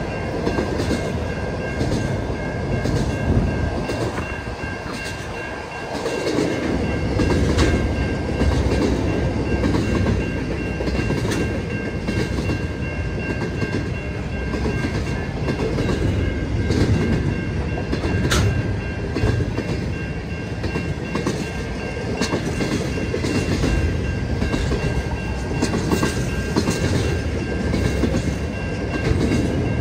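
Container wagons of a long intermodal freight train rolling past: a steady rumble with wheels clicking over the rail joints and a thin, steady high ringing over it. It dips briefly a few seconds in, then comes back up.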